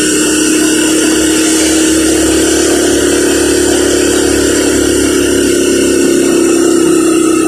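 Tricycle's motorcycle engine running steadily at road speed, its hum rising slowly in pitch as it picks up speed, over a steady hiss of wind and wet road.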